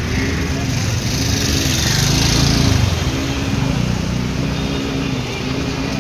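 A motor scooter engine running steadily while riding through floodwater on a street. A rush of spraying water swells from about one to three seconds in.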